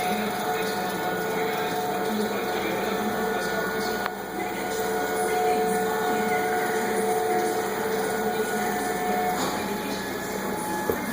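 CNC plasma table's axis drive motors whining as the gantry moves along its X, Y and Z axes. The steady pitched whine changes and pauses as moves start and stop, with a brief dip about four seconds in.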